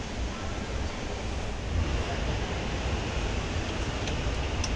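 Steady rushing background noise with a low rumble: the general din of a large exhibition hall, picked up with some low microphone rumble as the camera is carried.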